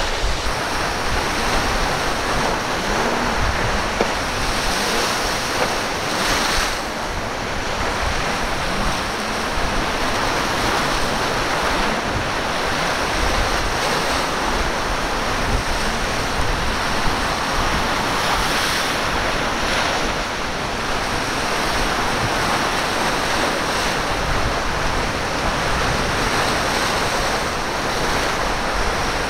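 Rough surf breaking and washing, with wind buffeting the microphone in an uneven low rumble.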